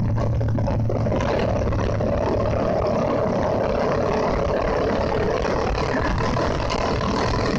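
Motorcycle engine running steadily at cruising speed along with rushing wind on the camera's microphone, a continuous even noise with no change in pace.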